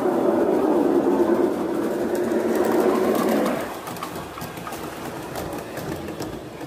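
Gauge 1 model steam locomotive running along its track, a loud steady running noise of motor and wheels; about three and a half seconds in it drops abruptly to a quieter rolling sound with light clicks as the train and its coaches pass.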